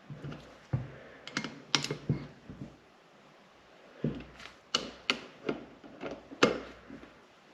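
Irregular clicks and light metallic knocks from a torque wrench and the oil pump's bolts being worked, in two clusters: one about a second in and another from about four to seven seconds in.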